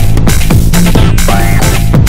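Electronic background music with a steady beat and gliding synth lines.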